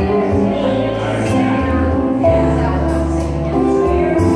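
Instrumental backing music for a slow ballad, with a bass line moving under sustained chords, playing between the sung lines.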